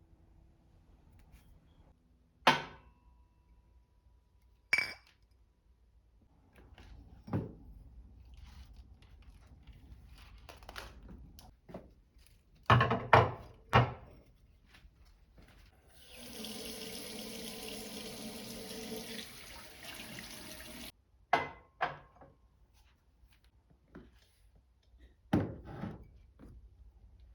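Kitchen sink work: a water tap running steadily for about five seconds in the middle, cutting off abruptly, among scattered knocks and clinks of dishes and utensils, with a quick run of three knocks a little before the tap.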